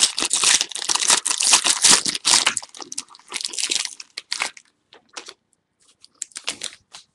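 A foil trading-card pack being torn open, its wrapper crinkling in dense rustling for about four and a half seconds, then only a few short rustles and ticks as the contents are handled.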